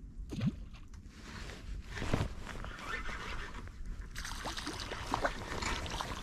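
Icy river water sloshing, with scattered short swishes and rustles, and a denser hiss of moving water from about four seconds in.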